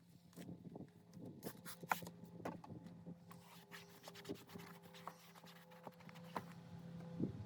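A cleaning rag rubbing and scrubbing the plastic of a truck's interior door panel, with irregular short scrapes and clicks over a faint steady hum.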